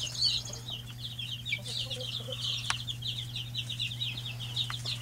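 A brood of Dorking chicks peeping, many short high cheeps overlapping in a rapid, continuous chorus over a steady low hum, with a single sharp click about halfway through.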